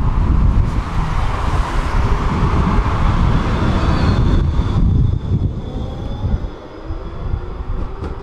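Tram running along its track, heard from inside the car: a loud rumble of wheels on rails that eases after about five seconds, when faint whines come in, one of them rising in pitch.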